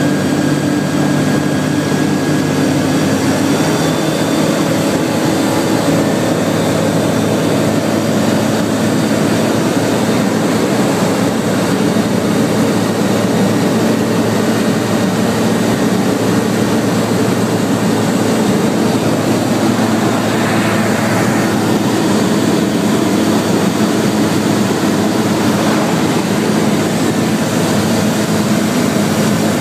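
Zenair 601 light aircraft's piston engine and propeller running steadily in flight, heard from inside the cockpit as a loud, constant drone. Its note shifts slightly about three seconds in.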